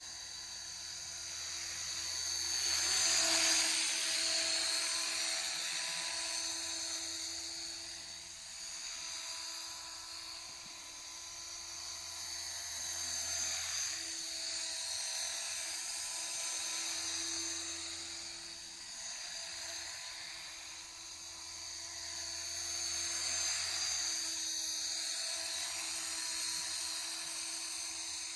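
Engine running with the throttle blipped several times, each blip a slow swell in loudness, over a steady high-pitched squeak or whine: the very annoying squeaky noise that shows when the throttle is blipped.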